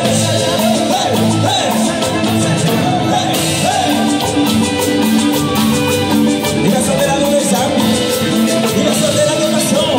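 A live Latin tropical dance band playing, with singing into microphones over electric guitar and percussion keeping a steady beat.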